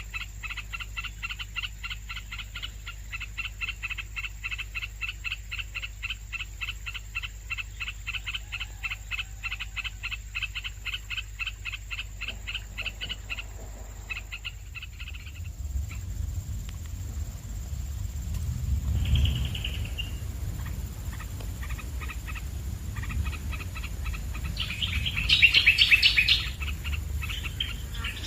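Bulbul nestlings giving a fast, even run of high begging chirps, about four or five a second, which stops about halfway through. After that a low rumble comes in, and a louder burst of high calls follows near the end.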